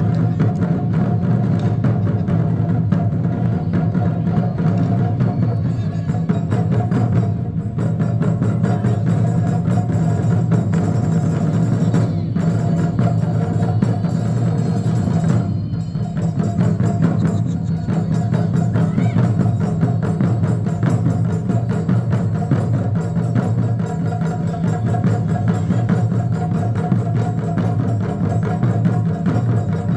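An ensemble of Japanese taiko drums playing a fast, unbroken run of strokes, with sharp, clicky hits over the deep drum tones.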